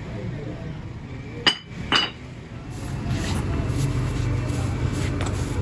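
Two sharp metallic clinks of steel casting-mould flask pieces knocked together as they are handled, about half a second apart, each ringing briefly. A steady low hum comes in from about halfway.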